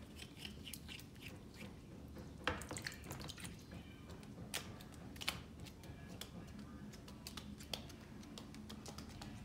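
A white crested duck dabbling its bill in a shallow water bowl: irregular little splashes, drips and bill clicks.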